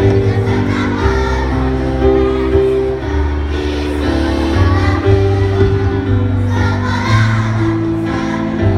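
A choir singing a song over music, with held notes that change pitch every second or so.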